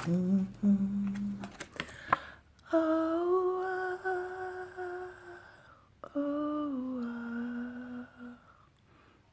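A woman humming a slow tune in long held notes, the second note sliding down in pitch, with a few light clicks near the start.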